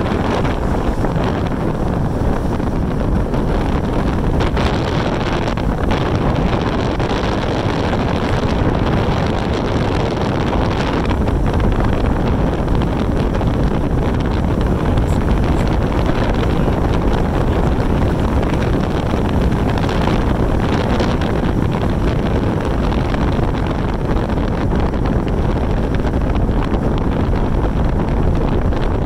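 Steady rush of wind buffeting the microphone over the road and engine noise of a follow vehicle driving behind a cyclist.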